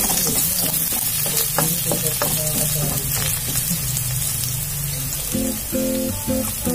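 Minced garlic sizzling in hot cooking oil in a wok, with a spatula scraping and knocking against the wok as it is stirred, mostly in the first half.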